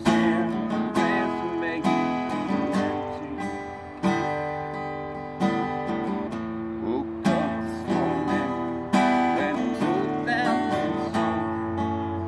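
Solo acoustic guitar playing chords, a new chord struck every second or two and left to ring.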